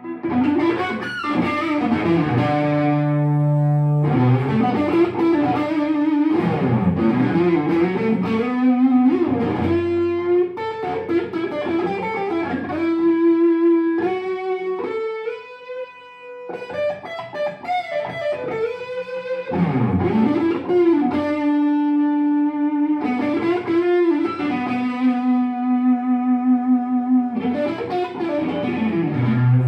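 Customised Fender Stratocaster electric guitar playing a slow lead melody, with string bends, vibrato and long sustained notes, through effects with a touch of overdrive. The playing drops briefly about sixteen seconds in.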